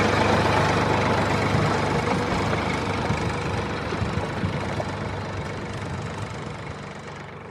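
Tractor engine running steadily at idle, gradually fading out over the last few seconds.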